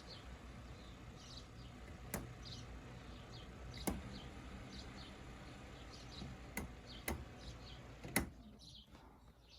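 Faint steady low hum of a 30-pound-thrust Minn Kota electric trolling motor running in reverse on a bench test, dying away near the end. A few sharp clicks and small bird chirps sound over it.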